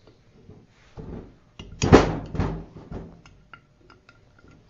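Hand ratchet loosening the bolts of a small engine's sump cover: a loud knock about two seconds in as a bolt breaks loose, then a run of light ratchet clicks.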